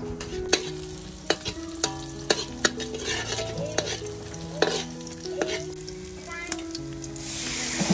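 Metal ladle and spatula clinking against a cooking pot and wok during stirring, a sharp clink every half second or so. About seven seconds in, hot oil sizzles up loudly with chopped garlic frying in the wok.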